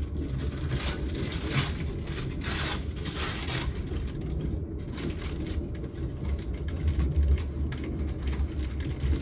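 Train running with a steady low rumble, with wheels clicking and clacking over rail joints and switches. A few swishing sounds come in the first few seconds.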